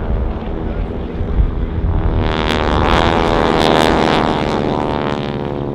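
North American Harvard trainers' radial engines and propellers droning overhead as the formation flies aerobatics, swelling to loudest about midway and then easing off.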